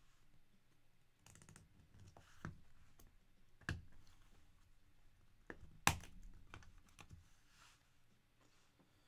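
Clear hard-plastic trading card cases being handled and set down on a tabletop: scattered light clicks and clacks, the two sharpest about four and six seconds in.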